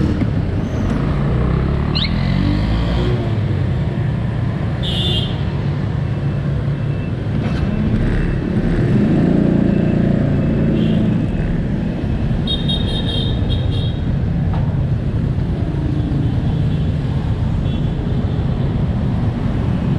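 City road traffic: motorbike engines passing close by over a steady rumble, their pitch rising and falling as they go past, with a few short high-pitched beeps in the middle.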